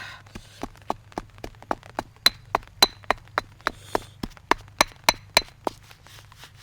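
A steady run of sharp knocks, about four a second, stopping shortly before the end.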